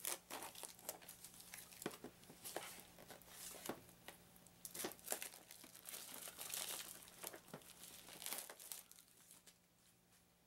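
Fingernail picking and tearing at the seal of a small cardboard game box and working its end open: a faint run of scratching, crinkling and small clicks that dies away near the end.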